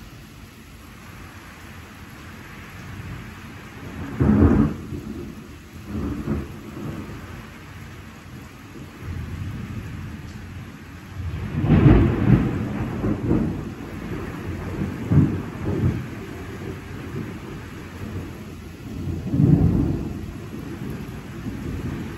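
Steady rain with rolling thunder: a sharp peal about four seconds in, a long rumbling peal through the middle, and another rumble near the end.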